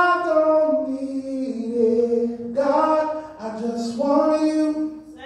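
Church worship team of men and women singing a slow praise song into microphones, holding long notes in phrases that break briefly a couple of times.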